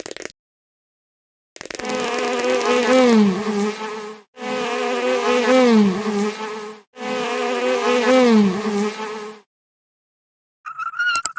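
Bee buzzing, a droning buzz that swoops down and back up in pitch, heard three times with short breaks between. Near the end a higher, thinner steady whine with clicks starts.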